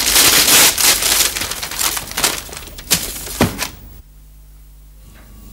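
Paper gift wrapping crinkling and rustling as a boxed parcel is unwrapped, with two sharper clicks about three seconds in. It stops about four seconds in, leaving only a low steady hum.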